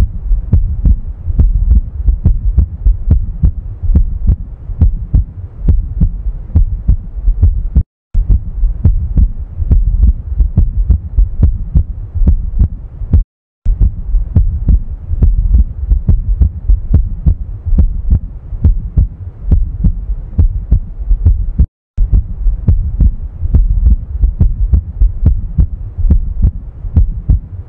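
A heart beating: a steady, continuous run of low thumps. Three times the sound cuts out to silence for a moment, about eight, thirteen and twenty-two seconds in.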